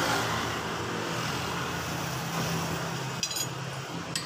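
A steady engine hum runs throughout. About three seconds in there is a short ringing metal clink, and just before the end a sharper click, as metal scooter CVT parts are handled and set down.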